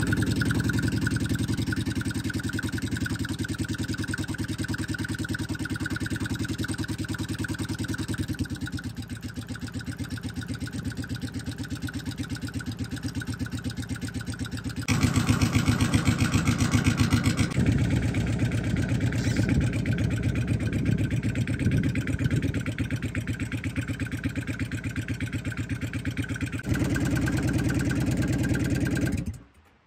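Yamaha V-Star 1100's air-cooled V-twin engine running at idle just after starting. It gets louder for a couple of seconds about halfway through and again shortly before it cuts off suddenly near the end.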